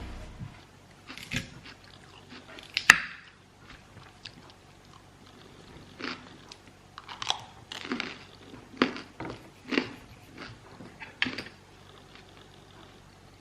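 Crunchy chewing: a series of separate, irregular crunches, with a sharp click about three seconds in.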